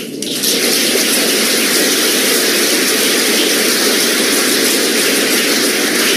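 A large audience applauding in a hall: a dense, steady clapping that starts suddenly and holds.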